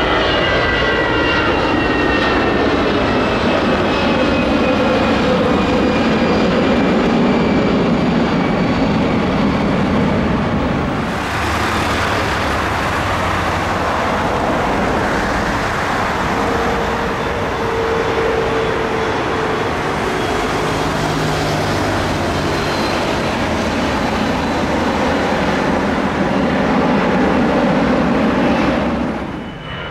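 Jet airliners climbing out after takeoff. First an Airbus A320's engines, with a whine that slides down in pitch as it draws away. About eleven seconds in, a cut to a Bombardier CRJ1000's rear-mounted turbofans climbing out with a steady rumble, which drops off sharply near the end.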